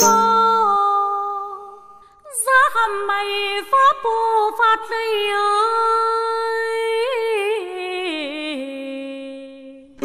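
A woman's voice singing a Tày folk song unaccompanied, in long drawn-out notes. A held note fades away about two seconds in, then a new phrase begins with wavering vibrato and slides down in pitch near the end.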